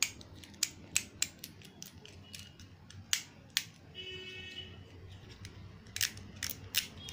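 Plastic fidget pad being clicked by hand: a series of sharp, irregular clicks from its buttons and switches, with a lull in the middle.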